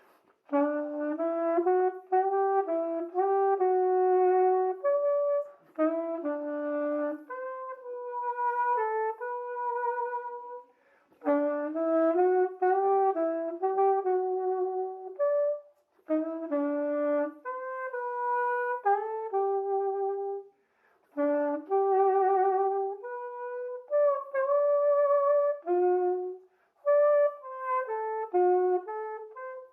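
Homemade PVC-pipe saxophone playing a slow melody alone. The phrases of held notes are broken by short pauses for breath, and some long notes carry a wavering vibrato.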